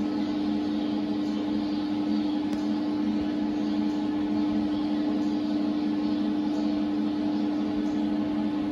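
Horse solarium's overhead infrared lamp unit running: a steady electrical hum with one constant low tone over an even fan-like hiss.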